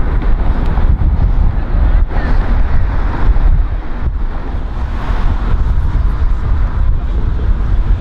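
Wind buffeting the microphone, a heavy, uneven low rumble, over a steady background of road traffic.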